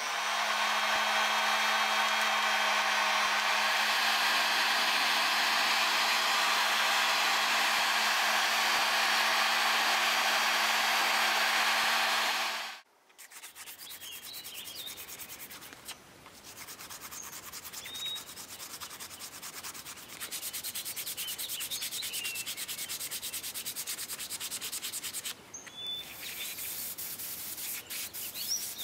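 Dnipro-M electric heat gun blowing steadily with a hum, switched off about halfway through. After that, a steel dagger blade is hand-sanded with sandpaper in quick rubbing strokes, with faint birdsong.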